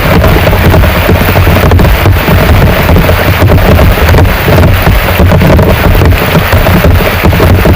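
Heavy rain pouring steadily, with many sharp drops striking close by and a deep rumble underneath.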